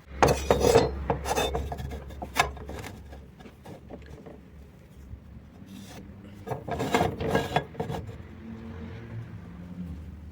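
A hand tool is rasping back and forth on an iron pipe in repeated scraping strokes. The strokes come in two spells, one at the start and another about six seconds in, with lighter scraping between.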